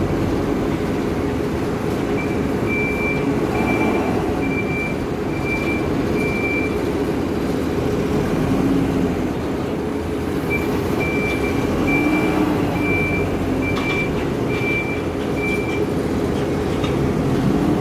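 Hidromek 102B backhoe loader's diesel engine running steadily while it works. Its reversing alarm beeps in two runs of short, evenly spaced beeps, about one beep every 0.8 seconds, the first starting about two seconds in and the second starting about ten seconds in.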